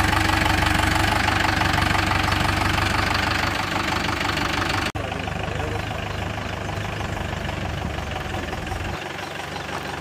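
Mahindra diesel tractor engines running at idle with a steady low rumble. About halfway through the sound breaks off and comes back a little quieter, and near the end the deepest rumble fades away.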